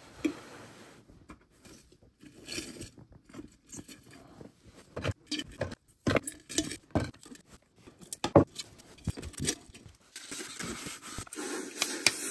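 Irregular clicks, taps and scrapes of hands working potting materials, soil mix and small stones, in a small terrarium container. Several sharper knocks come in the middle, and near the end a steady rustling hiss sets in.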